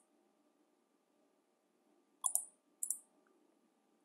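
Two short computer mouse clicks about half a second apart, a little past two seconds in, over faint room tone.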